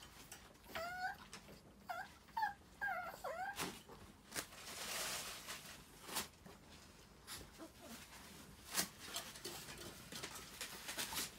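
Chihuahua whimpering from its crate: a run of short, high whines that sweep up and down in pitch, about a second in until three and a half seconds in. Scattered sharp clicks and a brief rustle follow.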